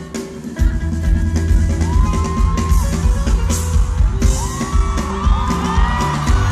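Live band playing through a concert PA, heard from the audience: drums, bass and guitars, with the full beat coming back in about half a second in after a brief break. Whoops and yells from the crowd rise over the music.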